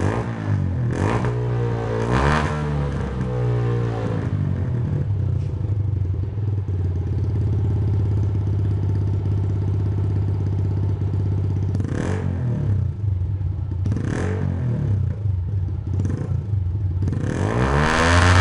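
Honda CG 125 Titan ES single-cylinder four-stroke engine running through an aftermarket Aluminium RS exhaust. It is blipped in a few quick revs, settles to a steady idle for several seconds, then takes three more short blips and a longer, harder rev near the end.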